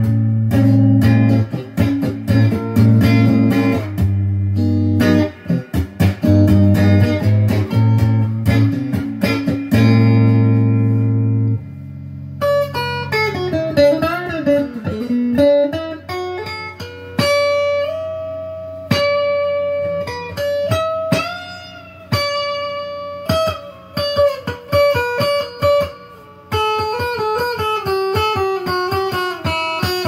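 Squier Debut Stratocaster electric guitar with stock single-coil pickups, played through a Crate amp on the middle pickup. Low chords and riffs ring for about the first eleven seconds, then it turns to single-note lead lines higher up the neck, with string bends and vibrato.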